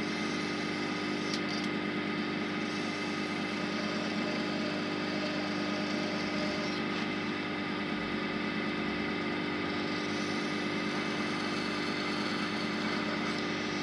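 Wood lathe running steadily, turning a pen blank on a pen mandrel: an even motor hum with a few held tones.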